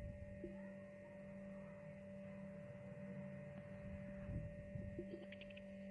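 Steady electrical hum from an idling Xerox WorkCentre copier, with a few faint taps on its touchscreen near the end.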